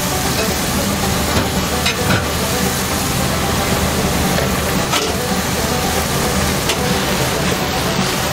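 Stir-fry of vegetables and rice noodles sizzling in a frying pan as it is stirred and tossed, with a few sharp clicks of the utensils against the pan.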